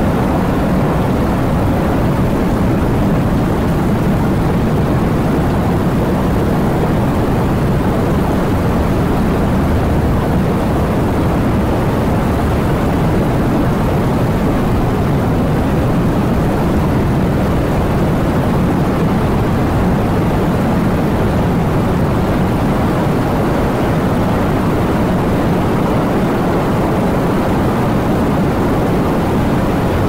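Steady heavy rain: an even, deep rushing that holds the same level throughout, with no separate drops standing out.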